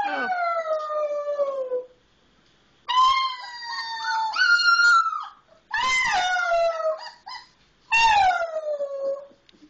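A baby wolf pup howling: four high howls with short pauses between them. Most slide downward in pitch, and the second steps up partway through.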